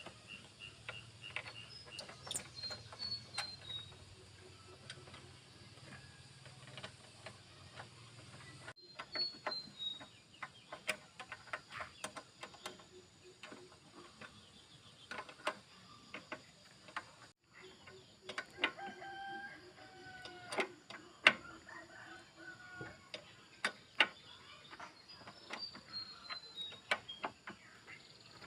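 Repeated light clicks and clinks of metal tools and parts being handled, the sharpest about two-thirds of the way in, with chickens clucking and a bird's falling chirps in the background.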